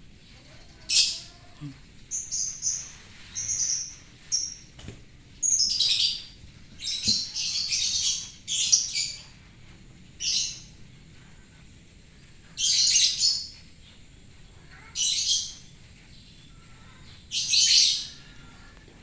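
Small birds chirping in short, high-pitched bursts, some single and some in quick runs, with pauses of a few seconds between.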